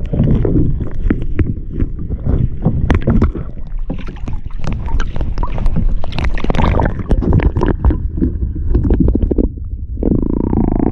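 Small boat moving on the sea: water splashing and slapping against the hull with many short knocks, over a heavy low wind rumble on the microphone.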